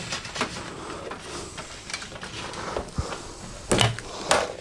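Handling noises as a LAN patch cable is fed behind a TV and media cabinet: light rustling and small knocks, with two sharper knocks near the end.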